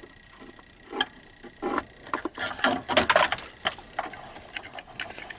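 Plastic wiring-harness connectors and their wires rattling and clicking as they are handled by hand, in a run of short clicks that is busiest around the middle.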